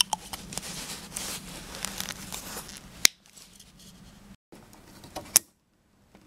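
Hands handling a plastic license plate lamp housing and its twist-in bulb socket: rustling and scraping of plastic, with two sharp clicks, about three and about five seconds in.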